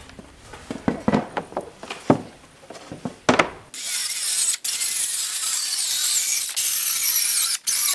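A few knocks and clacks as the saw and board are handled on the OSB, then, about three and a half seconds in, a circular saw ripping an OSB sheet along a chalk line: a loud, even, high-pitched cutting noise that breaks off for an instant twice.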